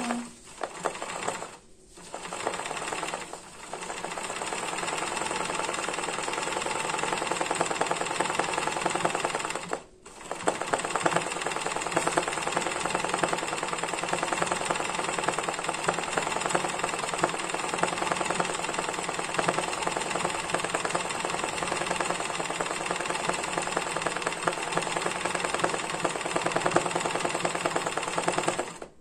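Janome 813 sewing machine stitching fast and steadily while an embroidery hoop is guided by hand for free-motion embroidery. It makes a few short starts and stops in the first few seconds and pauses briefly about ten seconds in.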